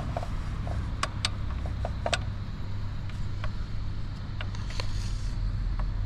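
A combination wrench clinking on a motorcycle's rear axle nut as it is worked loose: irregular sharp metallic clicks, most of them in the first two seconds, over a steady low rumble.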